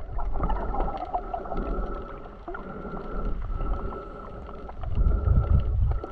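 Muffled sea water sounds: a low rumble with scattered small clicks and a steady hum over it, the rumble swelling louder near the end.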